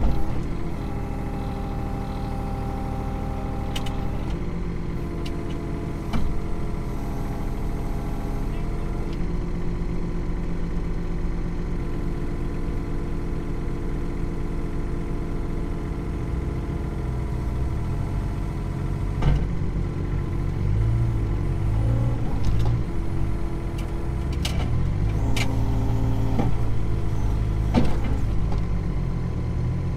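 Kobelco mini excavator's diesel engine running, heard from inside the cab, with a hydraulic whine that changes pitch as the controls are worked. A few sharp clanks come through, and the engine runs harder near the end.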